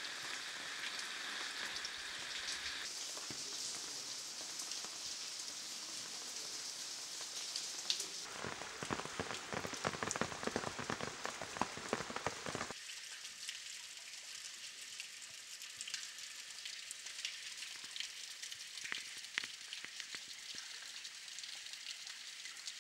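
Rain falling, a steady hiss of drops. For several seconds in the middle the drops hit closer and harder, a dense run of sharp ticks. It then drops back to lighter rain with scattered drips.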